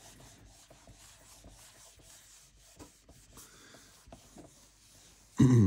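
Faint scratching and rubbing of writing, with small irregular taps. A short spoken sound with falling pitch comes near the end.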